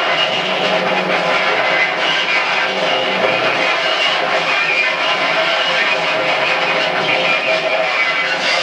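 Noise rock band playing live: a loud, dense, unbroken wall of electric guitar noise.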